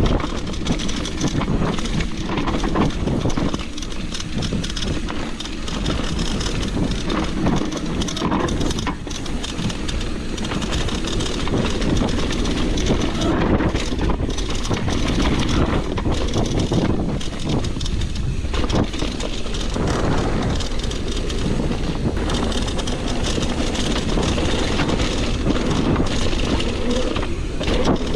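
Mountain bike descending a dirt trail: tyres rumbling over the ground, with the frame and chain rattling irregularly over bumps.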